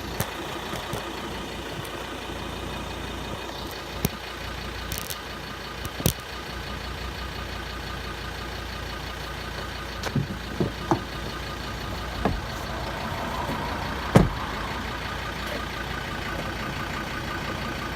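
Vehicle engine running slowly and steadily while its wheels roll over a plastic Milwaukee PACKOUT tool case, with scattered sharp knocks and one loudest thump about fourteen seconds in.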